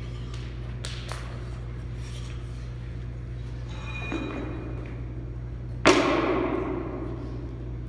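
One heavy thud about six seconds in, echoing and dying away over a second or so in a large gym hall, over a steady low hum.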